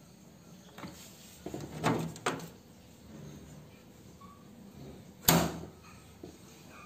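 Plastic kick panel at the base of a Modena front-loading washing machine being pried off and handled: a few clattering knocks about two seconds in, then one loud sharp clack about five seconds in.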